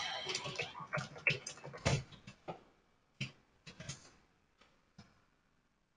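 Computer keyboard typing: a quick run of key clicks for about two and a half seconds, then a few scattered clicks.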